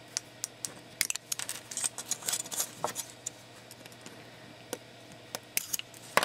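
Side cutters crunching on gold-lidded ceramic chip packages to crack them open: a quick run of sharp clicks and cracks, a few scattered clicks, then the loudest snap near the end.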